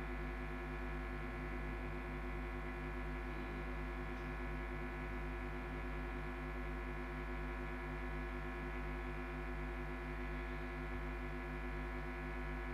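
A steady electronic hum of several held tones, unchanging and faintly pulsing.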